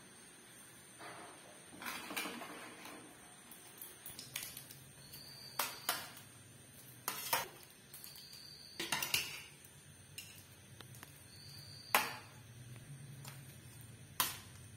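Stainless steel plates and pot clinking and knocking under a steel serving spoon as khichuri is dished out: irregular metallic clicks, some leaving a brief high ring, the sharpest near the end.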